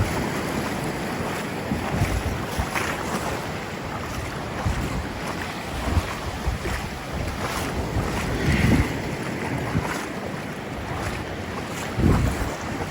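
Ocean waves washing on a sandy shore, with wind buffeting the microphone in low rumbling gusts, strongest about two-thirds of the way in and again near the end.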